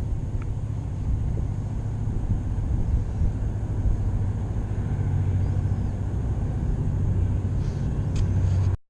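Coast Guard boat's engine running steadily as the boat passes on the river, a low even rumble. It cuts off suddenly near the end.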